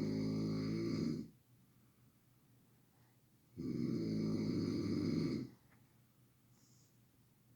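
A sleeping man snoring loudly, a long rattling snore with each breath in, each about two seconds long. One snore ends about a second in and the next begins about three and a half seconds in, with quiet gaps between.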